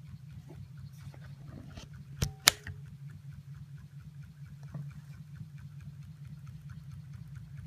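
Model Stirling hot-air engine running, with a rapid, steady mechanical pulsing. Two sharp clicks about two seconds in, a quarter-second apart, are the loudest sounds.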